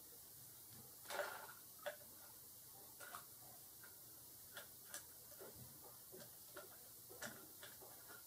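Near silence broken by faint, irregular clicks and light taps, roughly one a second, with a slightly longer scuffle about a second in: small two-week-old kittens clambering about.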